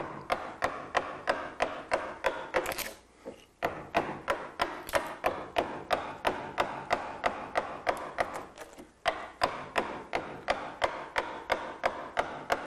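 Mallet blows on a carving gouge cutting into wood, a steady run of sharp taps about three a second, with two brief pauses. The gouge is roughing out waste wood on a relief carving.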